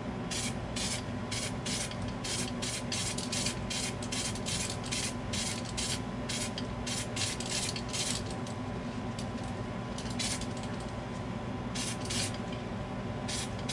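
Duracoat aerosol spray can hissing in many short, quick bursts as the first coat of firearm coating is laid onto a pistol slide; the bursts come less often in the last few seconds.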